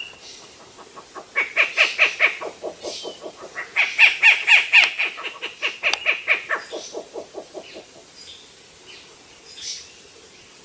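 An owl calling in a rapid run of harsh, rasping pulses, about five a second. There are two bouts: a short one, then a longer one that trails off. A few faint, thin calls follow near the end.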